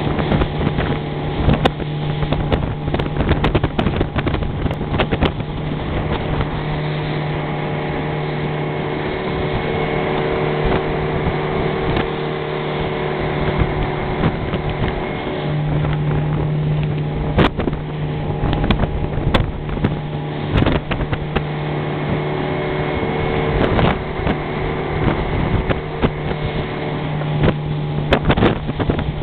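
Motor of a small fishing boat running steadily at speed, with irregular knocks of the hull hitting the waves and wind on the microphone.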